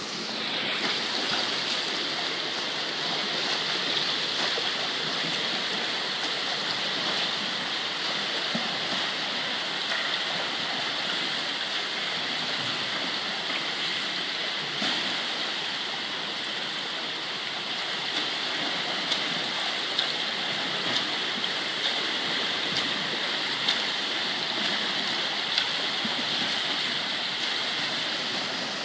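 Steady rushing of water in an indoor swimming pool, with the splashing of a swimmer's freestyle arm strokes and kicks. Short, sharper splashes stand out in the second half as the swimmer comes closer.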